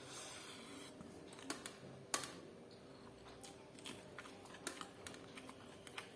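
Close-up eating sounds of fried chicken and rice: scattered sharp clicks and crunches of chewing and handling the food, the loudest about two seconds in, with a short rustle in the first second.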